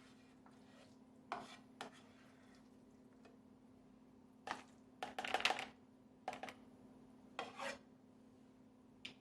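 A serving utensil knocking and scraping against dishes and a pan while food is portioned out: a handful of short clatters, busiest a little past the middle, over a steady low hum.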